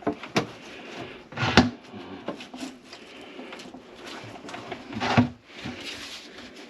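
Clunks and knocks from work on a grease-clogged kitchen sink drain, a few sharp strikes with the loudest about a second and a half in, and a short scraping rattle about five seconds in.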